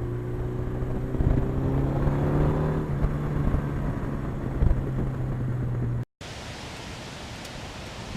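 1982 Suzuki GS1100E's inline-four engine running steadily under way, its note holding an even pitch. About six seconds in it cuts off abruptly, and only wind noise follows.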